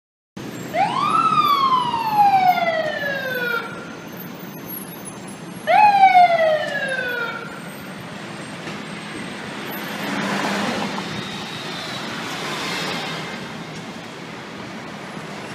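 Fire engine siren sounding twice. The first wail rises quickly and then winds down in a long falling tone. The second, about five seconds later, starts high and falls away more quickly. City traffic noise runs under it and swells briefly near the end.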